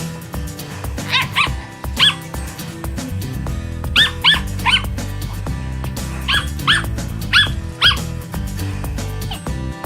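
A Portuguese Podengo Pequeno barking in short, high-pitched yaps, about ten in all, in three quick bursts, over background music.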